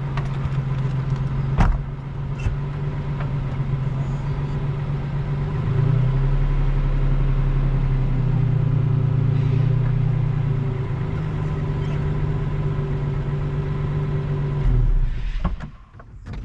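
Four-wheel-drive vehicle engine pulling under load. It runs steadily, revs up about six seconds in and holds there, then backs off near the end.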